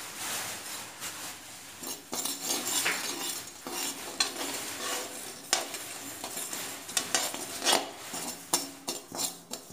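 Perforated metal spatula stirring and scraping amaranth seeds as they dry-roast in a hot metal kadhai, over a steady hiss from the hot seeds; the scrapes and clicks start about two seconds in.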